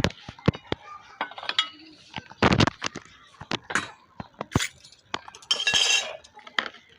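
Dishes and serving utensils clinking and knocking against each other in a run of irregular sharp clinks, with a longer rattling clatter about five and a half seconds in.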